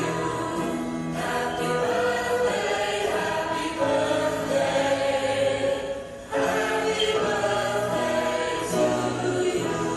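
Choral music: a choir singing long held notes, with a brief drop in level about six seconds in.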